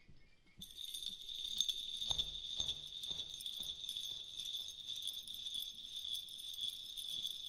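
A high, steady jingling shimmer like small bells in the film's background music. It comes in about half a second in, over a faint quieter tone before it.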